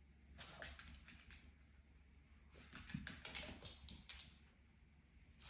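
Faint quick light clicking and tapping in two bursts, each about a second long, with a third starting at the very end.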